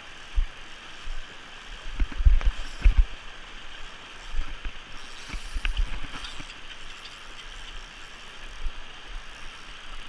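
Steady rush of river water, with irregular low thumps and a few faint clicks about two to three seconds in and again near six seconds.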